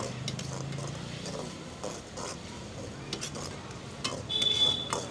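Steel ladle stirring Manchurian balls in gravy around a large steel wok, with repeated metal scrapes and clicks. A loud high squeal comes about four seconds in.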